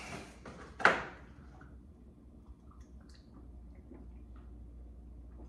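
A single sharp clack about a second in, then faint light clicks and rattles of things being moved about in an open refrigerator, over a low steady hum.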